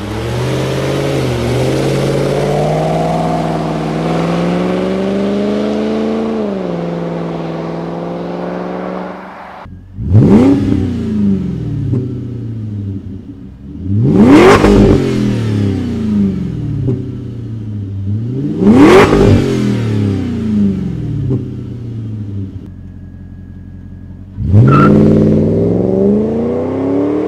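Volvo B8444S 4.4-litre 60-degree V8 in a Volvo XC90. It runs steadily at first, pitch drifting gently up and down, then cuts off. It is then revved hard four times, about four to five seconds apart, each rev climbing quickly and falling away slowly.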